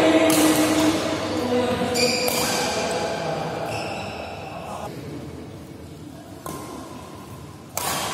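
Badminton rally: rackets striking the shuttlecock about five times, one sharp hit every second or two, each with a ringing tail.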